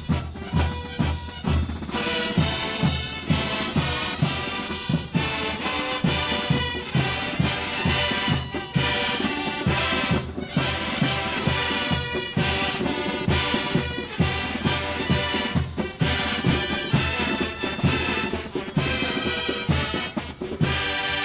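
Drum and bugle corps playing: brass bugles over a steady drum beat.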